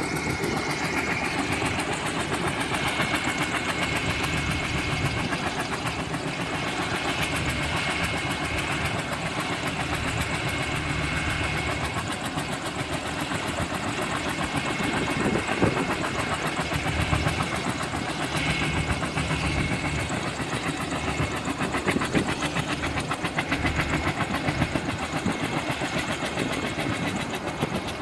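Helicopter engine and rotor running steadily, with a fast, even beat of the blades.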